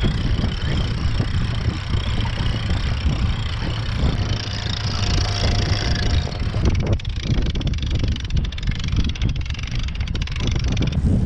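Wind buffeting the microphone on a sailing catamaran's deck as the sails are raised. From about seven seconds in comes a fast run of clicking as lines are worked at the rope clutches.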